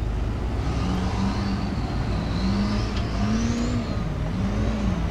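Off-road competition buggy's engine revving up and down in repeated swells under load as it climbs a dirt slope, with a high whine that rises and falls with the revs.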